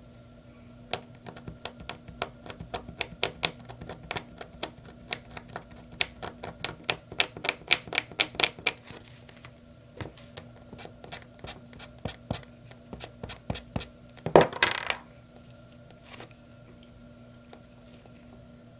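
Tip of a precision craft knife scratching into hot-press watercolour paper in quick crisp ticks, thinning out after about nine seconds. Near the end, a short louder rasp of something rubbed across the paper.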